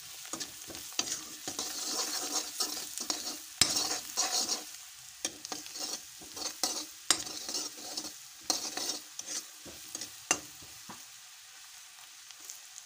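Vegetable strips sizzling in hot oil in a pan, stirred with a steel ladle that scrapes and clicks against the pan. The stirring eases off about ten seconds in and the sizzle carries on more quietly.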